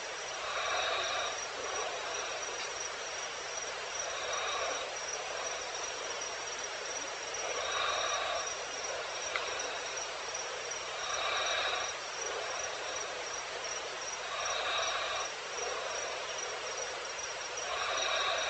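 Insects calling in a wild soundscape: a steady high trill throughout, with a second call about a second long repeating regularly, roughly every three and a half seconds.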